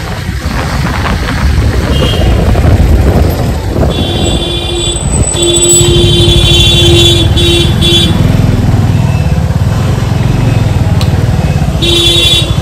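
Road traffic and motor-vehicle engine noise while riding, with a vehicle horn honking. One honk comes about four seconds in, a string of honks follows over the next few seconds, and another short honk comes near the end.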